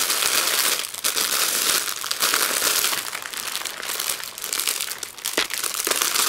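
Clear plastic bag crinkling and rustling on and off as hands open it and pull at the wrapping.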